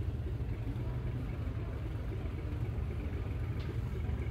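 Boat engine running steadily, a low even rumble.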